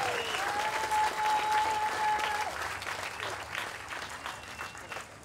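Crowd applauding, the clapping fading away over a few seconds, with one long steady held note sounding over it in the first couple of seconds.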